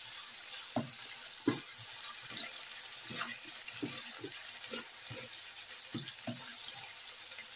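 Pork liver with chilli and garlic sizzling steadily as it is stir-fried in oil, with a spatula scraping and knocking in the pan at irregular moments, about once or twice a second.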